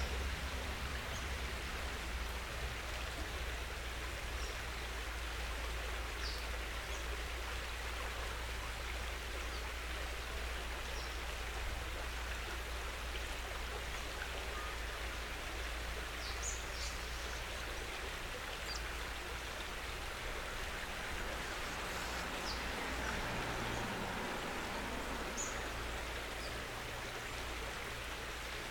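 Steady hiss of outdoor water noise with a constant low rumble underneath, and a few faint scattered ticks.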